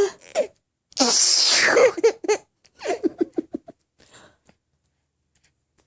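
A person sneezes, a loud hissy burst about a second in, and a baby laughs right after it in a quick run of short giggles.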